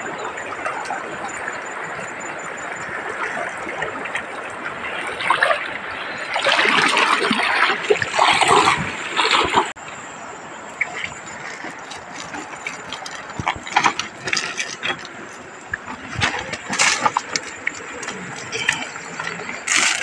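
River water sloshing and splashing around a man wading through the shallows with a cast net, with loud rough surges of splashing midway. After a sudden change, scattered sharp clicks and crunches of the nylon cast net and feet on river pebbles as the catch is spread out, with small fish flapping on the stones.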